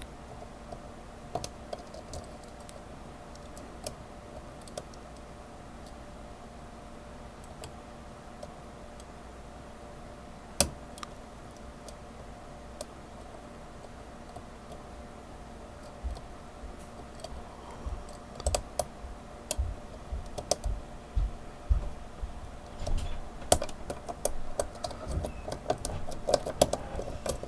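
Lock pick and tension wrench working the pins of a small Kryptonite padlock: scattered light metallic clicks at first, then from about halfway on a fast, busier run of clicks and taps as the pins are raked and scrubbed, growing denser toward the end. A faint steady hum sits underneath.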